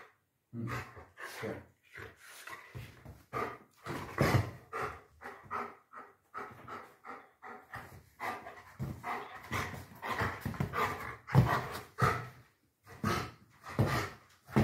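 German Shepherd dog panting hard, quick rhythmic breaths about two a second.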